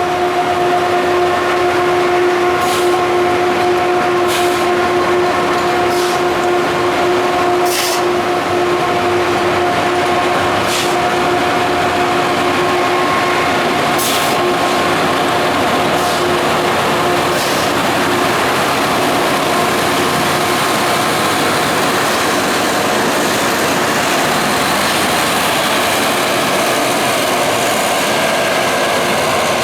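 QRN rail track grinder train running along the line: a loud, steady drone with a held tone that fades out about halfway through, and sharp clicks every one to three seconds in the first two-thirds.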